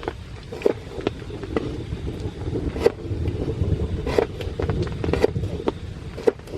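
Rain on a camp shelter: heavy drops tap at uneven intervals, a few a second, over a steady low rumble that swells about halfway through.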